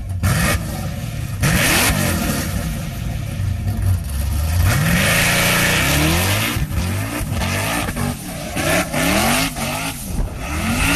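Car engine revving and accelerating, its pitch climbing again and again in short rises.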